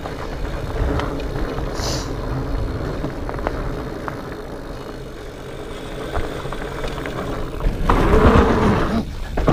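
Specialized Fatboy fat bike riding down a rocky trail: a steady rumble from the tyres and wind on the microphone, with scattered rattles and clicks from the bike. Near the end comes a louder surge of rushing noise lasting about a second.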